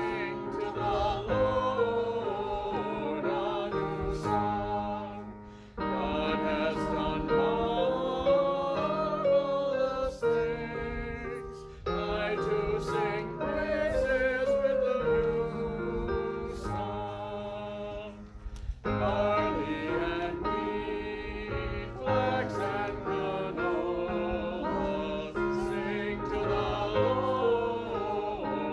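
A congregation singing a hymn together, with instrumental accompaniment under the voices.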